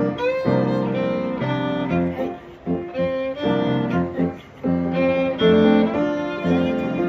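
Instrumental music: a violin plays a phrased melody over lower string accompaniment, with short breaks between phrases about two and a half and four and a half seconds in.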